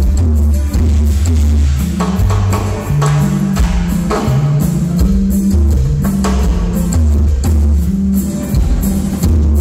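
Live band playing at full volume: a prominent bass line moving between notes, over drum kit and hand percussion with electric guitar.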